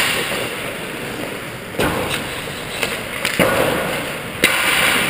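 Ice hockey warm-up on the rink: skate blades scraping the ice in sudden swishes, about two, three and a half and four and a half seconds in, with a few sharp clacks of sticks and pucks.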